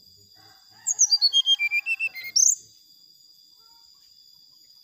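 Brown-chested jungle flycatcher singing one quick phrase of about a dozen short whistled notes stepping down in pitch, ending in a fast upward note, starting about a second in. A steady high insect whine runs underneath.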